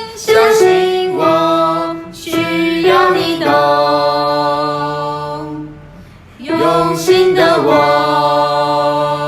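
Singing voices, a cappella, in long held notes: two sung phrases with a short break about six seconds in.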